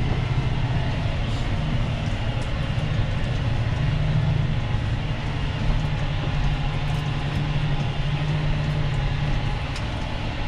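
Tractor engine running steadily under load, heard from inside the cab, as it pulls a reversible plough through the soil. The engine note is a low, even drone that lifts slightly about four seconds in and settles back near the end.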